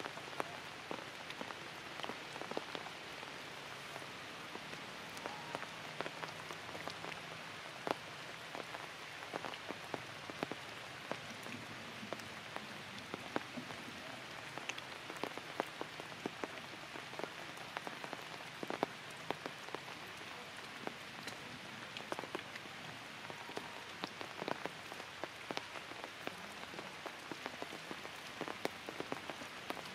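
Light rain falling on forest leaves: a steady patter with frequent sharp, irregular drop ticks.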